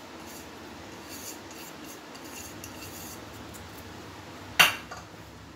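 Ground sugar tipped and tapped out of a bowl into a pan, with faint rubbing and scraping. A single sharp knock about four and a half seconds in.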